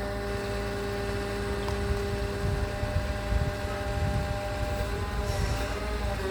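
Concrete pump running: a steady low engine rumble with a constant mechanical whine over it, the whine shifting slightly in pitch near the end.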